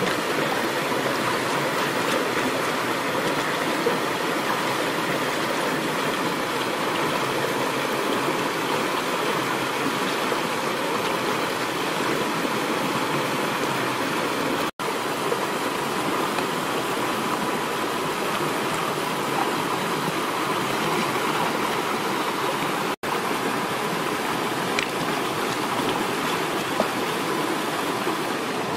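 Steady rush of a fast river running over rocks, with white water close by. The sound cuts out for an instant twice.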